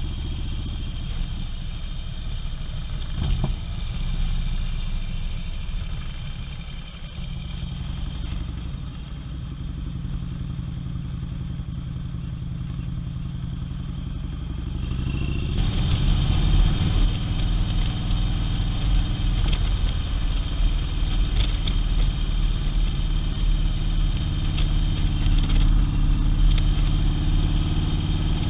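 Harley-Davidson touring motorcycle's V-twin engine running on the road, heard from the rider's seat with wind noise. The engine and wind get louder about halfway through.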